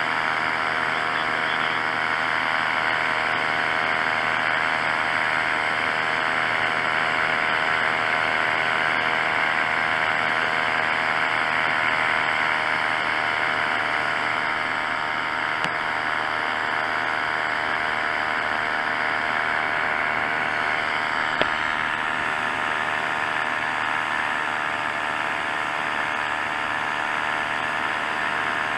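Paramotor engine and propeller running steadily in flight, a constant drone.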